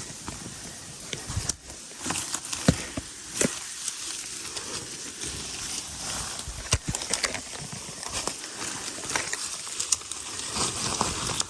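A hiker's footsteps, irregular crunches and scuffs with rustling, over a steady hiss.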